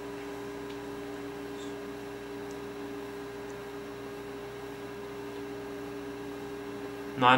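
Steady electrical hum of a few fixed tones over faint hiss.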